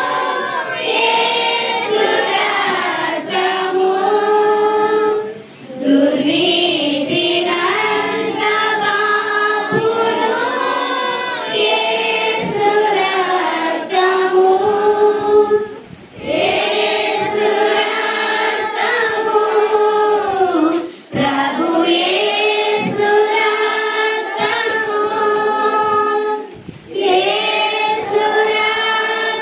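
A congregation of mostly women's voices singing a devotional song together in unison. The song moves in long phrases of held notes, broken by brief pauses for breath.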